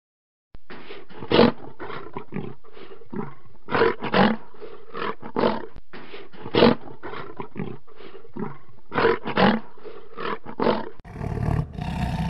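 Lion roaring: a long series of short roars, a few each second, some louder than others, then a fuller, louder roar starting near the end.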